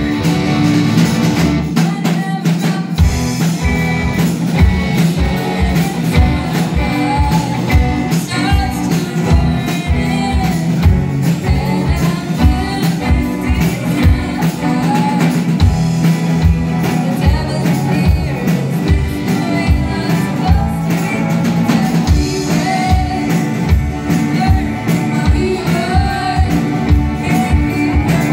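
Live rock band playing: distorted electric guitar, electric bass and a drum kit with a steady kick-drum beat, under a woman singing lead.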